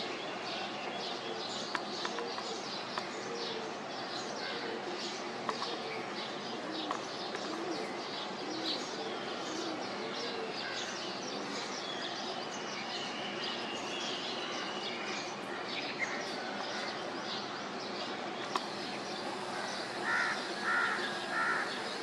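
Outdoor birdsong: many birds chirping busily over steady background noise, with three louder calls in a row near the end.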